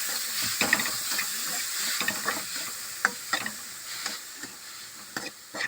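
Grated beetroot sizzling in hot ghee in a pan while being stirred. The spoon scrapes and clicks against the pan every so often, and the sizzle slowly dies down.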